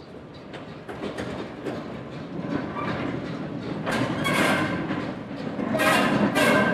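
A small diesel shunter locomotive running past close by, getting louder as it draws level, its wheels clicking over the rail joints and points. The loudest sharp metallic bursts come about four and six seconds in.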